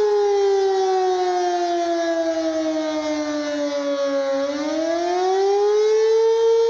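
Civil defense outdoor warning siren sounding its weekly test, a loud steady tone with many overtones. Its pitch slides down over about four seconds, then rises back to the steady tone by about six seconds in.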